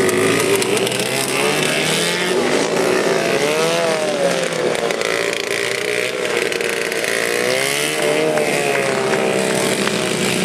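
Racing lawnmower's engine running hard, its pitch climbing and dropping twice as the throttle is worked, about a third of the way in and again near the end.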